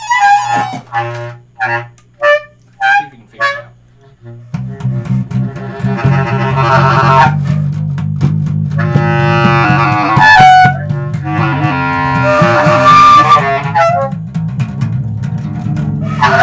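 Instrumental music from a small group. A few short separate notes sound over a soft low drone, then about four and a half seconds in a fast-pulsing bass line comes in loudly under wind and string melodies.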